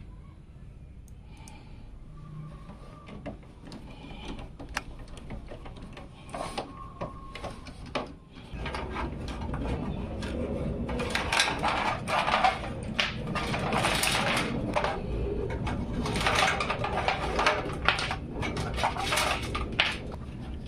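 Hands handling PC build parts: scattered clicks and taps, then from about eight seconds in a run of louder rustling with many sharp clicks.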